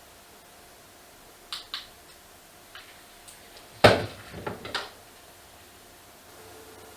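Small hard objects being handled: two light clicks, then a sharp clatter with a short ring, followed by a few smaller knocks.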